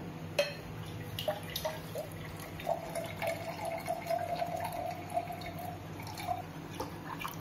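Water dripping and trickling, with scattered light clicks and a faint steady hum underneath.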